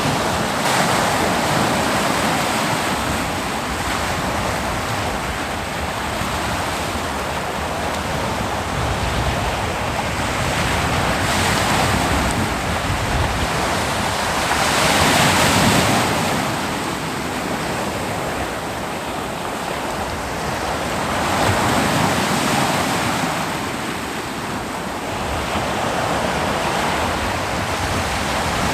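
Ocean surf breaking on a beach: a steady rush of water that swells with each breaking wave, several times, loudest about halfway through.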